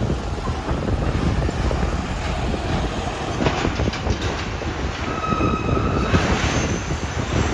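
Train running on the rails with a steady rumble, and a brief high wheel squeal about five seconds in.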